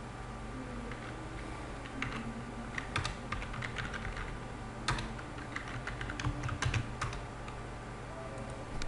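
Computer keyboard typing: keystrokes come in irregular clusters, with the densest run about six to seven seconds in. A steady low hum runs underneath.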